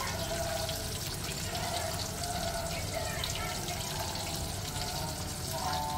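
Coconut milk pouring in a steady stream through a wire-mesh strainer of grated coconut into a pot of liquid, a continuous splashing trickle.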